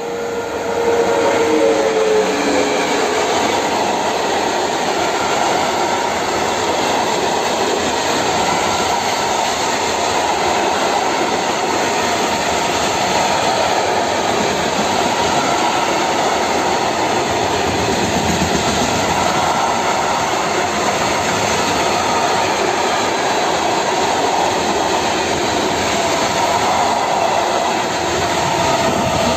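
Škoda class 163 electric locomotive passing close at speed, with a few tones falling in pitch as it goes by in the first seconds. Then a long train of open freight wagons loaded with timber rolls past, with loud steady wheel-on-rail noise.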